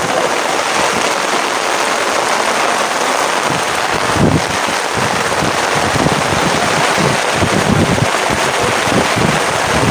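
Heavy rain pouring steadily. From about four seconds in, low irregular buffeting hits the microphone.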